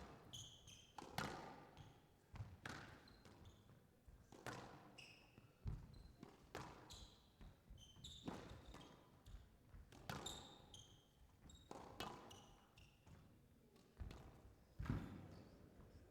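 Squash rally: the ball cracks off rackets and the court walls at irregular intervals of about a second, with short high squeaks from players' shoes on the court floor between shots.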